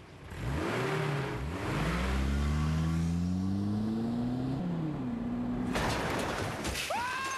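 Car engine revving hard and accelerating, its pitch climbing, dropping once and holding, then a crash into a wall about six seconds in.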